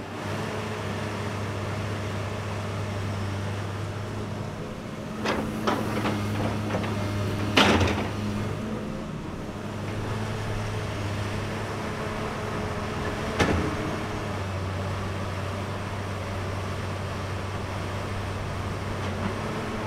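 Kobelco hydraulic excavator's diesel engine running steadily under digging load, with sharp metallic clanks and knocks as the bucket works: a cluster of them about a third of the way in, the loudest just before the middle, and one more about two-thirds in.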